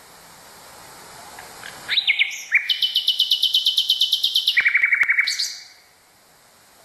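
Nightingale singing one song phrase about two seconds in: a few quick rising notes, then a long fast trill of high repeated notes that drops to a shorter, lower trill and ends on a rising note. A steady recording hiss lies under it.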